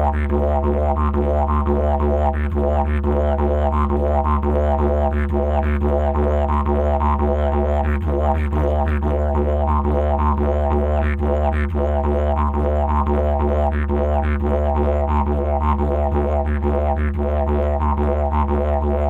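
Didgeridoo music: an unbroken low drone with a quick, even rhythmic pulse riding over it.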